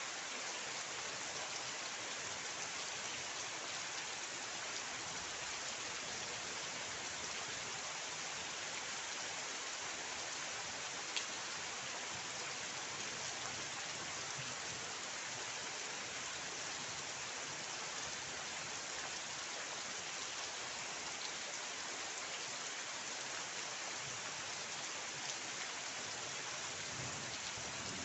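Steady rain falling: an even hiss, with a single sharper drop tick about eleven seconds in and another fainter one near the end.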